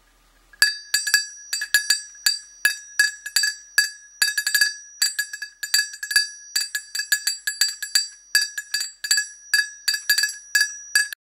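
Sunkhaze Flewelling handcrafted medium nickel-plated dog bell shaken by hand, its heavy clapper striking two or three times a second, sometimes in quick doubles. Each strike rings with a clear, high, steady tone, and the ringing cuts off abruptly near the end.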